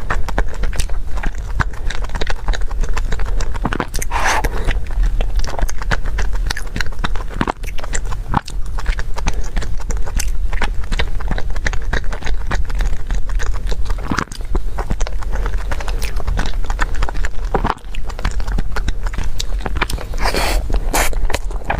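Close-miked chewing and biting of a tangyuan (glutinous rice ball) cake, with many short mouth clicks over a steady low hum.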